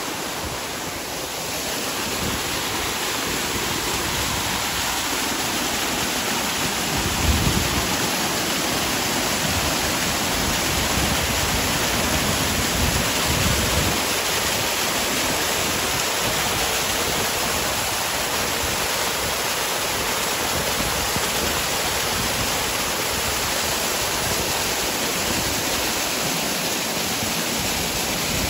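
Steady rush of a waterfall's falling water, filling all pitches evenly. A brief low thump about seven seconds in, and a lesser one around thirteen seconds.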